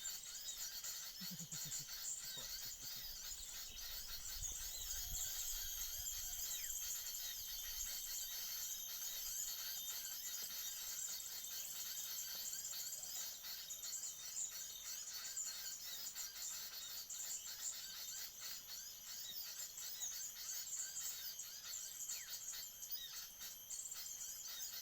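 Dense, steady high-pitched chirring and chirping of insects and birds, with some low handling rumble in the first few seconds.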